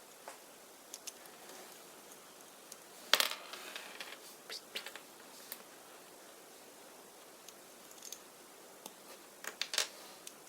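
Small plastic toy pieces being handled: scattered light clicks and taps, a louder clatter about three seconds in, and a quick run of clicks near the end.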